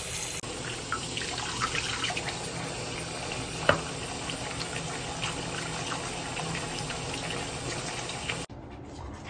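Bathroom tap running steadily into a ceramic sink while hands are washed and rubbed under the stream, with small splashes. The running water cuts off suddenly near the end.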